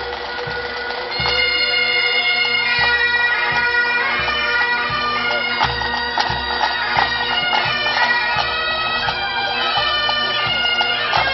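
Highland pipe band playing: bagpipe drones sounding steadily, the chanters' melody coming in about a second in, with drum beats underneath.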